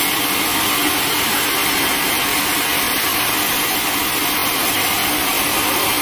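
Band sawmill running steadily, its blade cutting lengthwise through a teak log.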